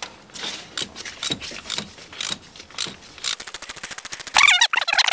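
Hand socket ratchet and its metal socket parts: scattered metal clicks and clinks, then about three seconds in a fast, even run of ratchet clicks as it is spun on a water pump bolt. Near the end comes a short wavering squeak.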